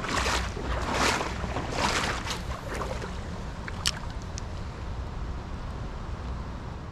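Water splashing in a rhythm, about one splash a second, fading out after about three seconds, over a steady low rumble of wind on the microphone. One sharp click near the middle.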